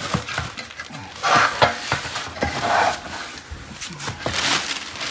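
Plastic packaging wrapped around a new radiator rustling and crinkling as it is handled, with a few light knocks.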